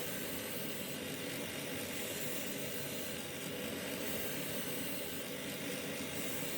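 Work Sharp belt knife sharpener running steadily: an even motor-and-belt hiss with no breaks, as the blade's final edge is put on.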